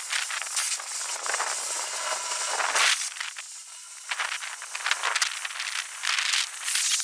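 Cutting torch hissing steadily with crackling and sputtering as it cuts through steel, the noise swelling and easing as the cut moves along.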